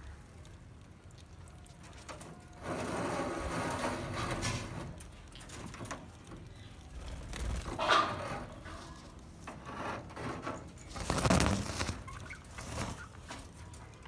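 A flock of budgerigars chattering in an aviary, rising in louder bursts about three seconds in, briefly near eight seconds, and again around eleven seconds.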